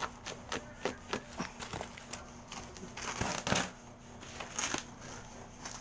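Plastic bubble wrap and packing tape crinkling and crackling as hands pull and tear them off a cardboard box, in a quick run of short crackles that thickens a little after halfway.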